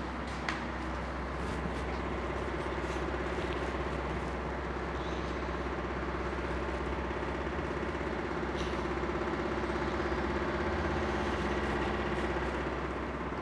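Steady low hum and background noise in a room, with a faint steady drone and a few light clicks scattered through it.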